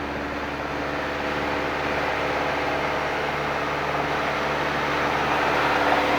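Steady drone of a 1973 Piper PA-28-180 Cherokee's four-cylinder Lycoming engine and propeller, heard from inside the cabin in cruise. It grows slightly louder over the seconds.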